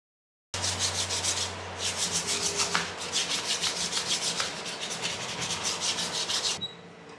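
Abrasive cloth sanding a round wooden handle blank clamped in a vise, worked back and forth in quick rasping strokes, about four a second. It starts abruptly about half a second in and stops abruptly near the end, leaving a faint hiss.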